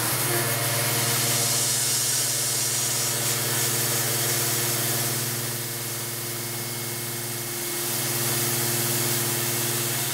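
Tormach 770 CNC mill spindle running a 1/8-inch carbide end mill through a slot in 304 stainless steel: a steady hum with a few overtones, under the loud, even hiss of a Fogbuster air-mist coolant spray aimed at the cut.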